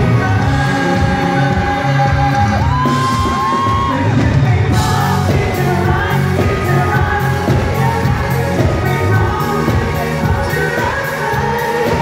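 Live pop song performed by a male singer with a full band through a concert sound system, with fans yelling and whooping in the crowd.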